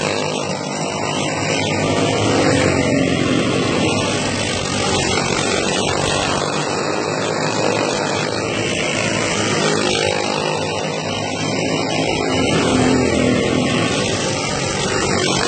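Several dirt-oval racing karts with four-stroke single-cylinder clone engines running hard at once. Their overlapping engine notes are loud and continuous, and the pitches shift slightly as the karts pass.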